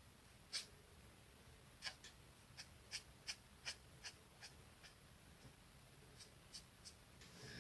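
Quiet, short strokes of a coloring tool, about a dozen at irregular spacing, over a faint steady low room hum.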